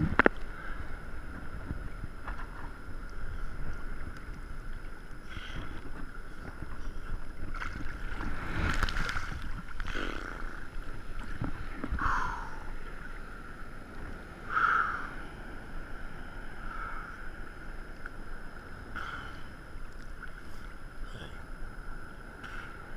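Sea water sloshing and lapping around a camera held at the surface, with wind and several louder splashes against it.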